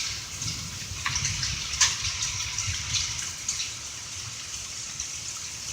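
Heavy hail mixed with rain pelting down: a steady hiss with scattered sharp hits of hailstones, the loudest hit about two seconds in.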